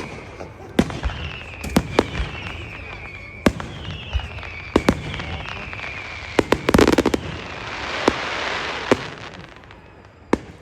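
Fireworks display: aerial shells bursting in a string of sharp bangs, with a few falling whistles. About six and a half seconds in comes a rapid volley of cracks, followed by a crackling fizz that swells and dies away.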